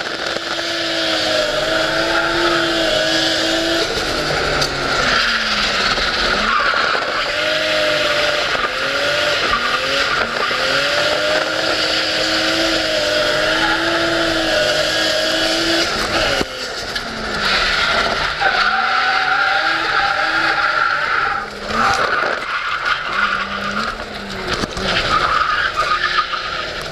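Drift car's engine heard from inside the cabin, held at high revs with its pitch dropping and climbing again as the throttle comes off and on, over continuous tyre squeal from sliding tyres. The engine briefly drops away twice in the second half.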